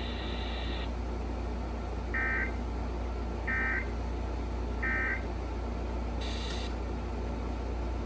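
Three short warbling bursts of EAS SAME digital data, the end-of-message code sent by a Sage EAS ENDEC, evenly spaced about a second and a half apart, marking the end of the emergency alert. A steady low hum runs underneath, and a brief hissy click comes near the end.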